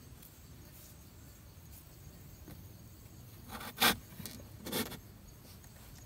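Two short scraping rubs about a second apart, the first louder: a thin wooden stick being handled against a cardboard box.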